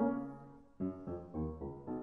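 Instrumental background music with struck, piano-like notes over held bass notes. It fades to a brief lull a little before halfway through, then new notes come in.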